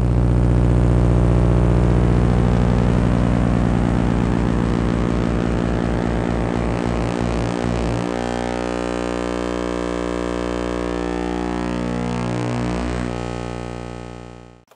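Synthesized electronic intro sound: a loud buzzy drone of many stacked tones. It changes about eight seconds in, a few falling sweeps follow near the end, and it fades out just before the end.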